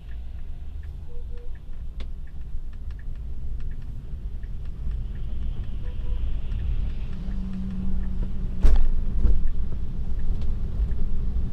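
Low rumble of a Tesla's tyres working through snow as the car pulls away in Slip Start mode, which lets the wheels spin to gain traction. Scattered light ticks run through it, with two louder thumps about nine seconds in.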